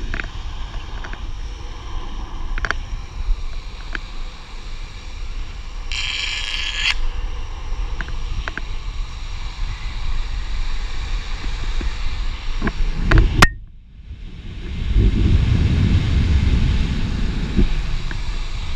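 Longboard's urethane wheels rolling fast over asphalt, with wind rushing over the microphone. There is a brief sharper hiss about six seconds in, and a loud knock past the middle after which the sound drops away for about a second. Heavier low wind buffeting follows.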